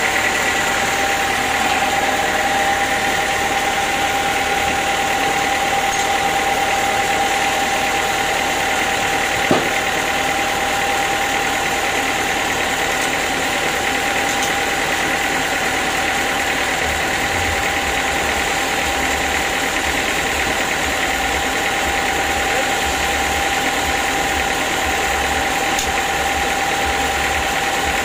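Band sawmill machinery running steadily, with a single sharp knock about nine and a half seconds in.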